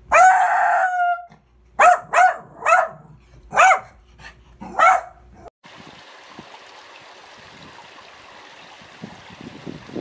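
A small dog barking: one drawn-out, yowling bark of about a second, then five sharp barks spaced about half a second to a second apart. About five and a half seconds in, the barking stops and a steady outdoor hiss follows.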